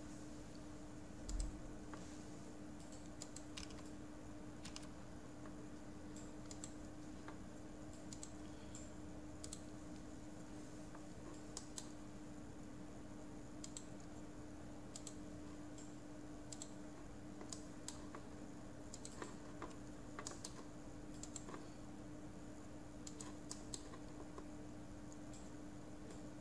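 Computer keyboard keystrokes and mouse clicks, sparse and irregular, over a steady low hum, with one low thump about a second and a half in.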